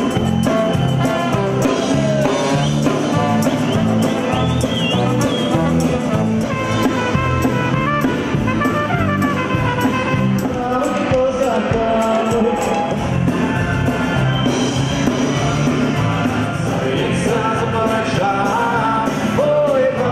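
Rock band and folk instrumental ensemble playing a piece together at rehearsal: a drum kit keeping a steady beat under trumpet, clarinet and guitar.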